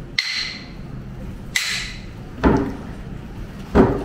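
Long wooden yumomi paddles worked through a tub of hot spring water to cool it: four strokes about 1.3 seconds apart. The first two are hissing splashes and the last two are heavier wooden thuds.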